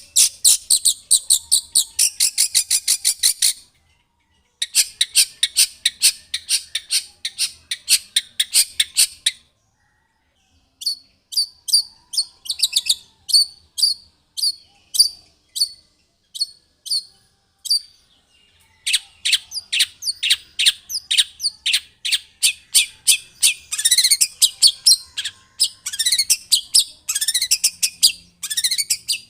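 Long-tailed shrike (cendet) singing loudly in fast chattering runs of short, sharp, high notes, many a second, broken by three brief pauses.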